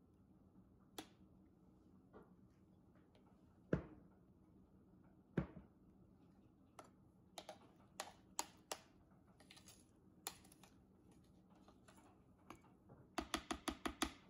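Metal spoon clicking and knocking against a plastic food processor bowl and its blade. There are two sharp knocks, scattered lighter clicks, and a quick run of about seven taps near the end.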